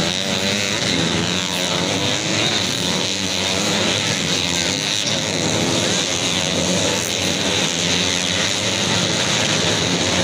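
A pack of racing dirt bikes' engines revving on the track, many pitches rising and falling over one another in a continuous din.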